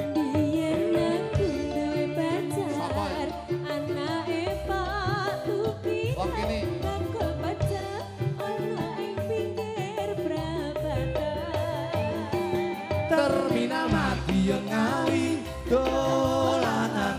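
Live Javanese campursari song: a band playing with deep drum beats under wavering melodic lines, and a man and a woman singing.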